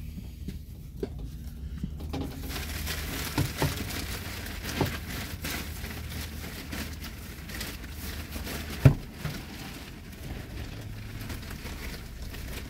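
Aspen wood-shaving bedding rustling and pattering as it is scooped and poured, with a few light knocks and one sharp thump about nine seconds in.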